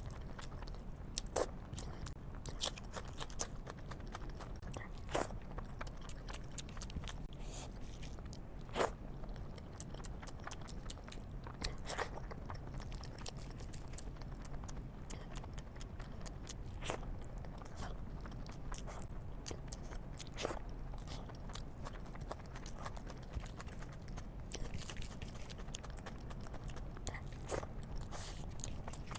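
Close-miked eating: chewing and mouth sounds with irregular crisp clicks and crunches, over a steady low hum.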